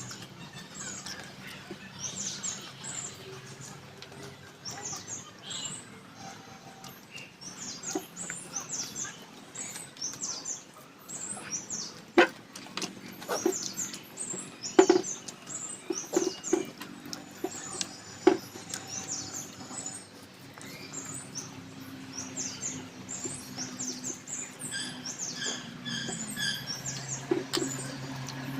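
Small birds chirping again and again, with a repeated call near the end, over the close-up clicks and smacks of someone eating and chewing.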